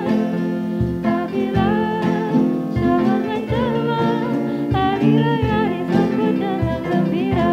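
Small live band playing a Malay Hari Raya song: acoustic guitar, electronic keyboard and a cajón keeping a steady beat, with a voice singing a wavering line in the middle.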